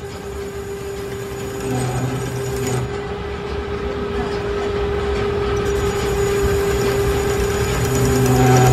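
Metal lathe running while cutting a flanged steel workpiece: a steady machine hum with a constant high ringing tone, growing gradually louder.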